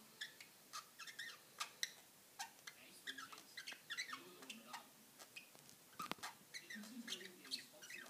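Budgerigar chatter: a quiet, busy run of short chirps, squeaks and clicks, with one sharp click about six seconds in.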